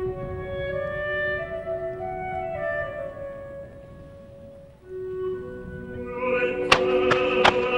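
Classical music with slow held woodwind-like notes, growing fuller and louder about six seconds in. Near the end two sharp bangs, under a second apart, cut through the music.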